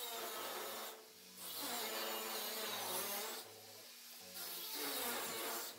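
Plasma cutter hissing as it cuts the steel tank, in three bursts of one to two seconds each with short pauses between. Faint background music with a repeating bass line runs underneath.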